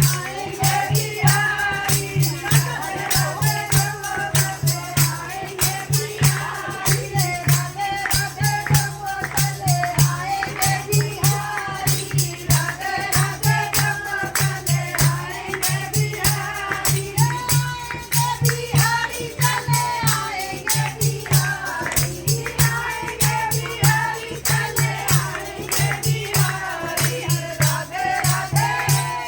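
Hindu devotional kirtan: voices singing together over a fast, steady beat of a hand drum and jingling tambourine-like percussion.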